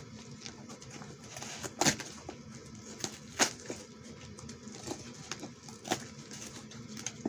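A package being worked open by hand without scissors: scattered sharp clicks and crinkles of the packaging over a faint hiss.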